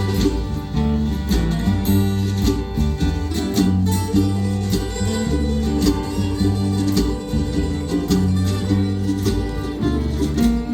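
Acoustic folk band playing live, with plucked guitar over a steady bass line.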